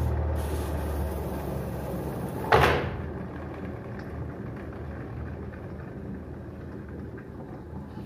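Semi-automatic washing machine's spin-dryer motor and tub running with a low hum that eases off and fades as the tub slows, the brake now released so it spins freely without the 'ghan-ghan' noise. A single sharp knock about two and a half seconds in.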